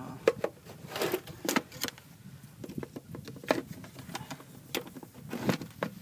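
Irregular light clicks and knocks, about eight or nine, from hands working the small rain-cover box over the solar panel's plug connection.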